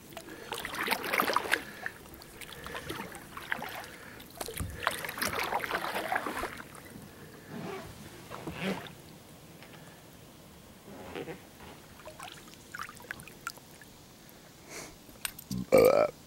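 Kayak paddle strokes dipping and splashing in the water, with several swishes in the first seven seconds, then quieter drips and light ticks. Near the end comes a short, loud throat sound from the paddler.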